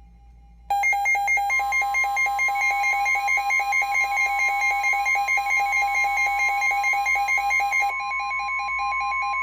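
Emergency weather alert tones: a loud, harsh pulsing electronic alarm starts about a second in, and half a second later the steady 1050 Hz NOAA Weather Radio warning tone joins it, announcing a severe thunderstorm warning. The pulsing alarm drops in level near the end.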